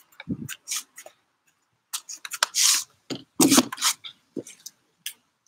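Irregular clicks, taps and short rubbing rustles close to the microphone, with a brief hiss in the middle: handling noise of the recording device.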